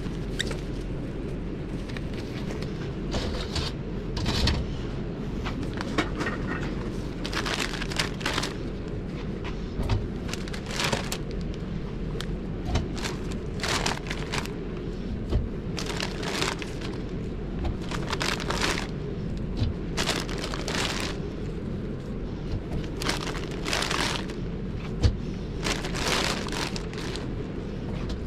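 A steady low hum with many short rustles and clatters from hands at work: nitrile gloves being pulled on, raw chicken handled out of a plastic crate, and pieces set onto a metal oven rack.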